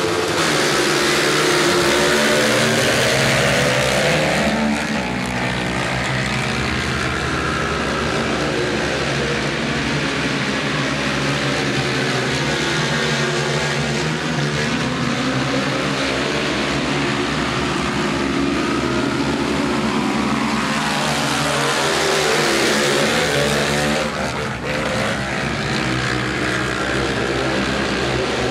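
Several speedway quad bikes' engines revving and racing together, a mix of engine notes rising and falling in pitch as the riders accelerate and ease off. Loudest in the first four seconds, with another swell a little past twenty seconds in.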